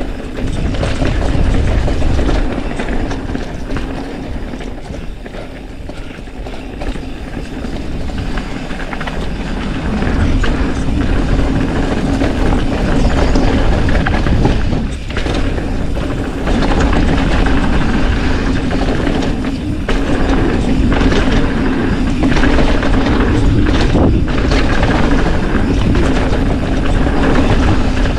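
Mountain bike riding fast down a rough dirt trail: the tyres rumble over the ground and the bike rattles over bumps, picked up by a chin-mounted helmet camera.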